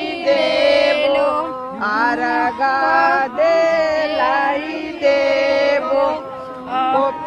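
Voices singing a Chhath devotional folk song, holding long, wavering notes.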